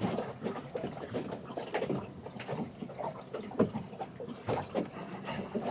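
Ambient sound on a small fishing boat: irregular light knocks and clicks over a steady wash of sea and wind.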